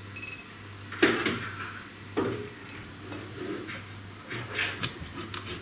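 Knocks and clinks of kitchen work: a glass jar set down on a wooden counter and a kitchen knife cutting fresh cucumbers in half on a cutting board. There are a few separate knocks about one and two seconds in, then a quicker pair near the end.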